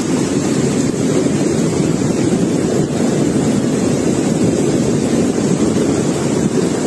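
Muddy flash-flood torrent rushing down a street, a loud steady roar of fast water.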